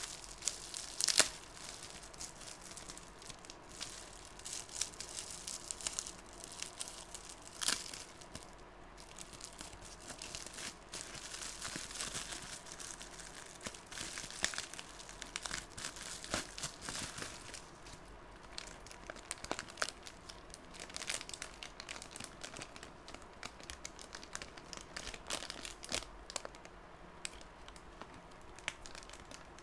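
Plastic bubble wrap and a clear plastic bag crinkling and rustling as hands unwrap them, with many small sharp crackles and a couple of louder ones, about a second in and near eight seconds in.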